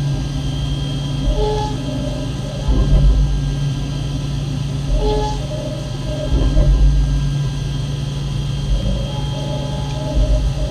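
Okuma M560-V CNC vertical mill cutting 7075 aluminum under flood coolant: a steady machining rumble with a high spindle tone and coolant spray. The cut swells louder every three to four seconds.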